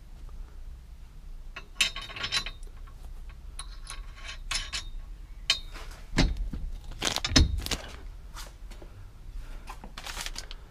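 Loose steel bolts and hand tools clinking and rattling against a roll cage's mounting foot as it is bolted in, in several short bursts, with two dull knocks about six and seven and a half seconds in.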